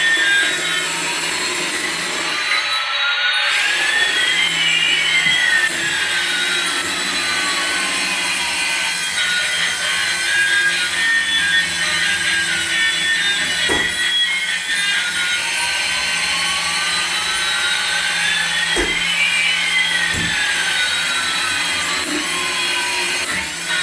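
Battery-powered toy aircraft running: a steady raspy whirring with electronic sweeping tones that rise and fall over each other, twice.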